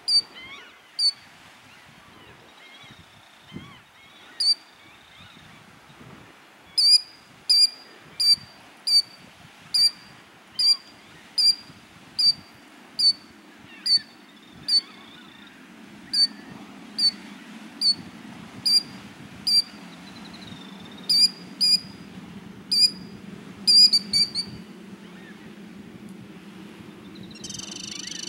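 Killdeer giving short, sharp, high alarm calls, one note repeated about once a second, to drive intruders away from its nest. Near the end the calls stop and a steady, high trill begins.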